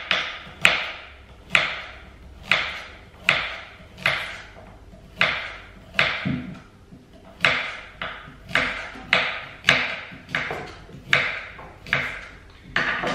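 Small kitchen knife slicing through a raw carrot onto a wooden chopping board, a sharp crack as each slice snaps off and the blade strikes the board, about one a second, each with a brief ringing tail. Carrots are loud to cut like this.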